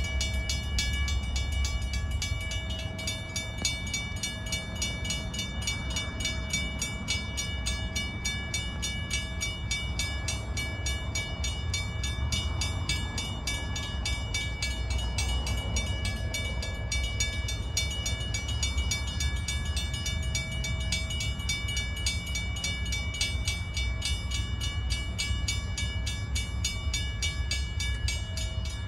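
Railroad crossing warning bell ringing steadily and rapidly at an activated crossing, with a low rumble underneath.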